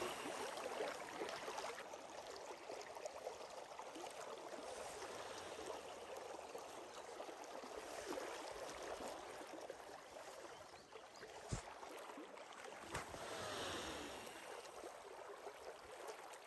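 Steady rush of a river's current flowing past, with two sharp clicks about eleven and a half and thirteen seconds in.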